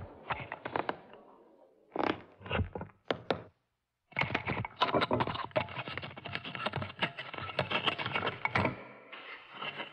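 Crackling, clicking and scraping handling noise from a stage microphone being gripped, wrestled and tied up with string. It comes in short clusters of clicks, cuts to dead silence about four seconds in, then resumes as a dense run of crackling that stops shortly before the end.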